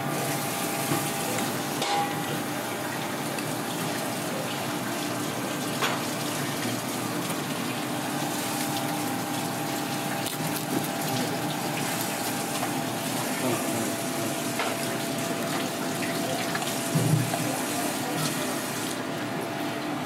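Steady rush of water running from a tap into a steel sink, over a faint steady kitchen hum. A few short knife clicks on the cutting board are heard.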